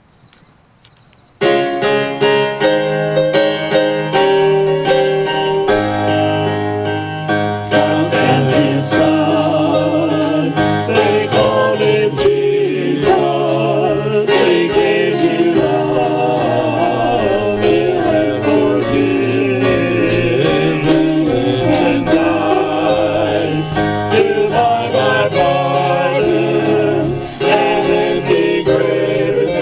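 Worship music: a keyboard starts suddenly about a second in, and singing joins it several seconds later.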